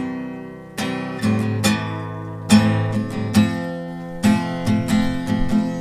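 Acoustic guitar strumming chords, which come in abruptly and ring on between repeated strokes, without singing.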